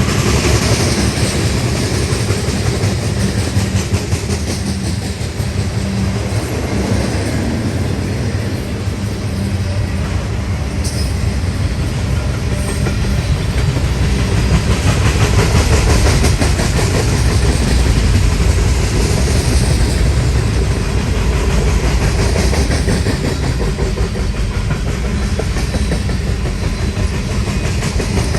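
A train's cars rolling past close by: a steady, loud rumble with the rhythmic clickety-clack of wheels over the rail joints.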